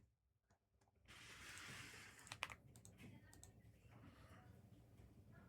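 Faint, scattered clicks of typing on a computer keyboard, a few keystrokes at a time over a soft hiss, with the loudest click about halfway through.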